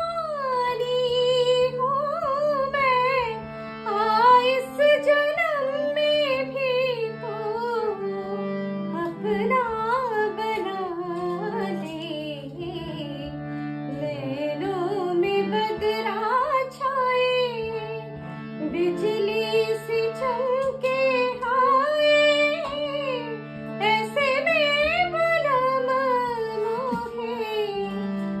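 A woman singing a Hindi film song with ornamented, gliding phrases, accompanying herself on a harmonium that holds steady sustained chords beneath her voice.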